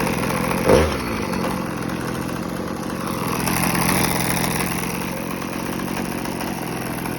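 Husqvarna 345R brushcutter's small two-stroke engine running steadily at idle; its throttle cable is broken, so it cannot be revved. A brief loud thump comes just under a second in.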